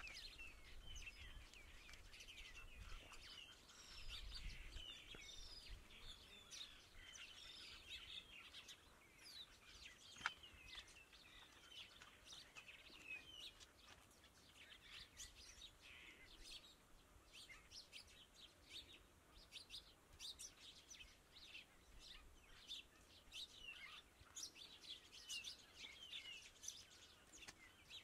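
Faint chorus of small birds chirping and calling, many short rising and falling notes, with a low rumble in the first few seconds and a single sharp click about ten seconds in.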